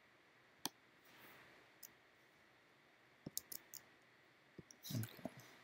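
Scattered computer clicks over near silence: a single click about half a second in, another near two seconds, a quick run of clicks a little past three seconds, then louder clicking and tapping near the end as typing starts.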